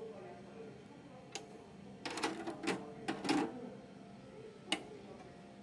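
Metal tongs clicking against a wire grill mesh while a rice cracker is turned on it. There is a single click, then a quick cluster of clicks around the middle, and one more click near the end.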